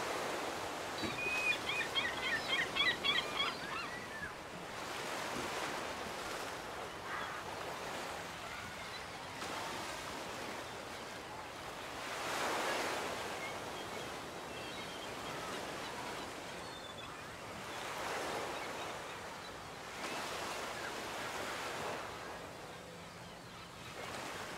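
Surf washing onto a beach, the wash rising and falling in slow swells. About a second in, a bird calls in a quick run of short notes for a few seconds, the loudest thing here, with a few faint chirps later on.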